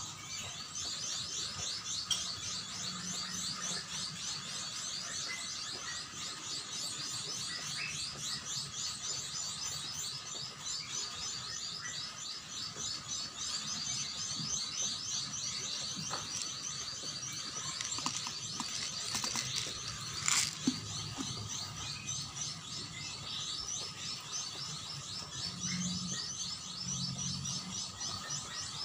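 Continuous fast, high-pitched chirping, evenly repeated, over a steady high tone. There is one short knock about two-thirds of the way through.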